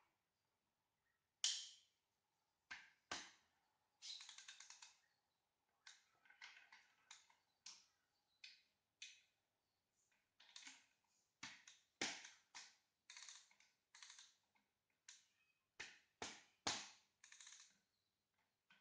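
Ratchet wrench clicking in short quick bursts, mixed with sharp single knocks of metal tools, while bolts are worked on the clutch.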